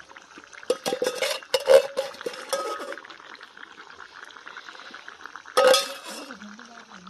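Steel utensils scraping and clinking against a steel kadai and plate as fried potatoes are scooped and stirred into a chicken curry. A run of scrapes and clinks comes in the first few seconds, then one louder clatter past the middle.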